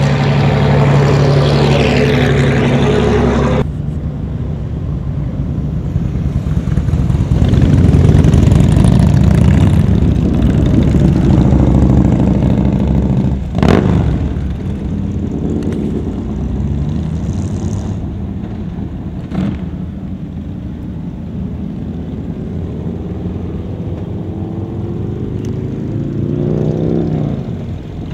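Engines of parade vehicles driving past: a vintage fire truck's engine runs steadily at the start, then loud low engine noise takes over. A single sharp knock comes about fourteen seconds in. Near the end a classic sedan's engine swells and fades as it passes.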